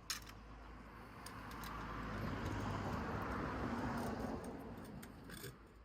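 A car driving past: tyre and engine noise swells, peaks about three to four seconds in, then fades away.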